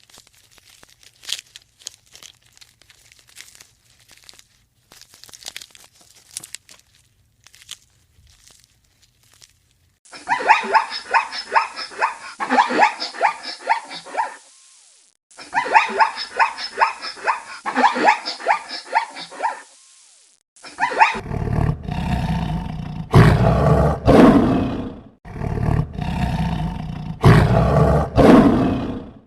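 A big cat, lion or tiger, roaring and growling in long, deep calls through the last third. These come after two runs of rapid, repeated high calls from another animal and a stretch of faint clicks and rustles.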